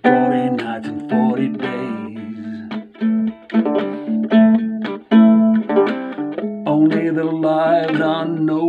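Small acoustic guitar strummed in a steady rhythm of chords.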